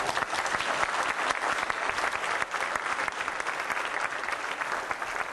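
Crowd of students applauding: dense, steady clapping.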